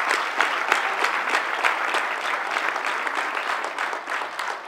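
Audience applauding: many hands clapping together, easing off slightly toward the end.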